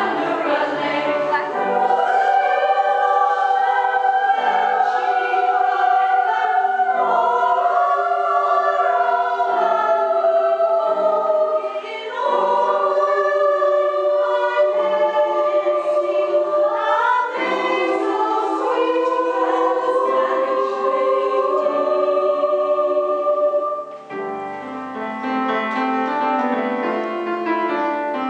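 Choral music: a choir singing long, held phrases. Near the end it drops to a quieter passage.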